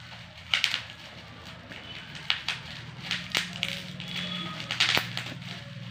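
Plastic wrapping around a bicycle horn crinkling and crackling as it is pulled open by hand, with about four sharp snaps along the way.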